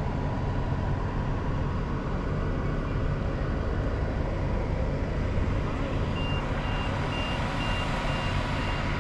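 Steady low vehicle rumble. About two-thirds of the way in, a reversing alarm starts, beeping about twice a second.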